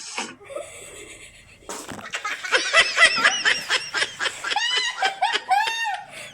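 People laughing hard in high-pitched bursts, breaking out about two seconds in and going on in quick repeated peals.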